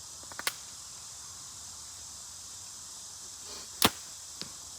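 An archery shot: a sharp crack of the bow string on release, then about half a second later a fainter thud as the arrow strikes the foam 3D target. A few light clicks come near the start, and insects chirp steadily throughout.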